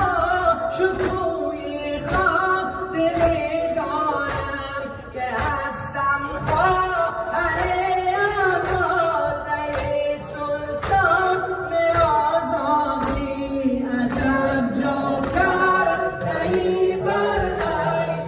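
Male reciter singing a Muharram lament (noha) a cappella, with the congregation joining in chorus over a steady beat of thumps from chest-beating (matam).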